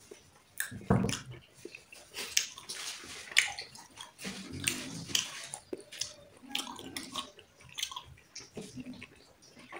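Close-miked wet eating sounds: irregular smacking, squelching and crackly clicks of chewing, several a second, with no speech.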